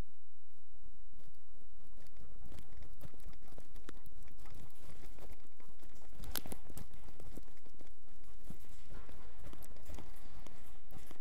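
Movement noise picked up by a microphone worn on a search-and-rescue dog: irregular knocks and scuffs from its steps and body movement as it searches, over a constant low rumble. One sharper knock comes about six seconds in. No barking.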